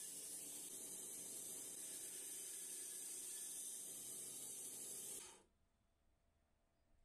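Homemade bandsaw cutting through a strip of film-faced plywood, a steady hiss that stops abruptly about five seconds in.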